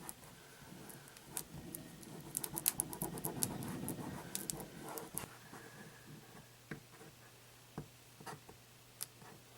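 Fingers scraping and rubbing at a vinyl decal and its backing on a fridge: rustling and scratching, busiest in the middle, with scattered sharp clicks, over a faint low steady hum.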